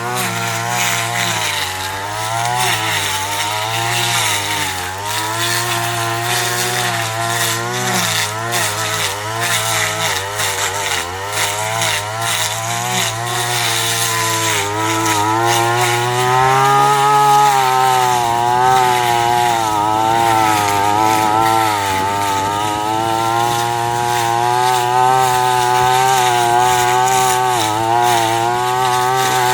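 Small engine of a grass-cutting machine running steadily under load, its pitch wavering up and down as the work loads it, with a brief rise partway through.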